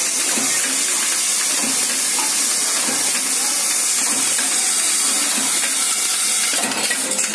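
Automatic socket packaging machine running on its conveyor line, heard as a steady hiss.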